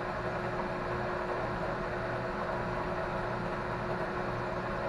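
Metal lathe running steadily in a low gear, a constant hum with one clear steady tone, while a hand file is held against the spinning workpiece to deburr its freshly faced end.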